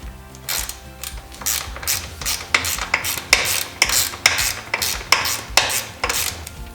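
Ratchet wrench clicking in quick repeated strokes, about three a second, as fasteners are being undone.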